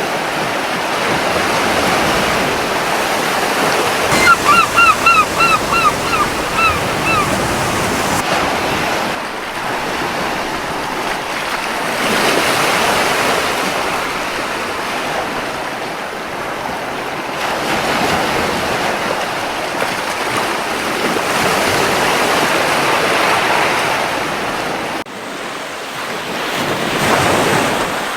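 Gentle sea waves washing onto a beach, swelling and easing every few seconds. About four seconds in, a seagull gives a quick run of about eight short calls.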